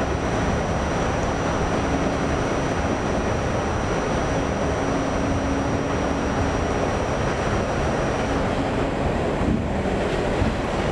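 New York City subway train running steadily, a continuous rumble of wheels on rail with a low hum that drops out and returns and a thin high whine that stops about eight seconds in.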